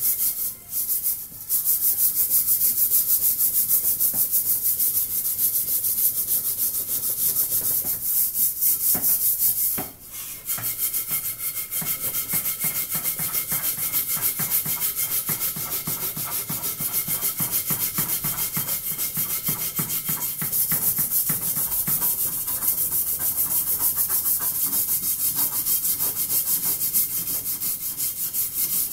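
A blackened metal cooking pot being scrubbed by hand in fast back-and-forth rasping strokes. The scrubbing breaks off briefly about a second in and again about ten seconds in.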